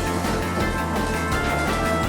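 Background music in a retro video-game style, with steady held chords and a bass line.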